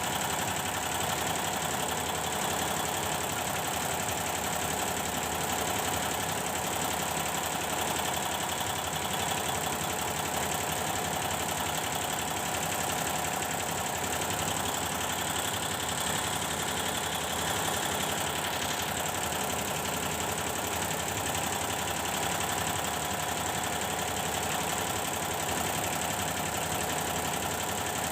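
Computerized embroidery machine stitching steadily, its rapid needle action running evenly without a break: a test run after the power supply in its drive unit was repaired.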